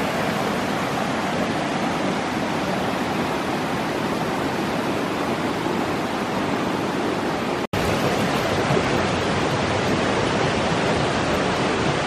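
Steady rush of a mountain river flowing over rocks, broken by a momentary dropout about eight seconds in.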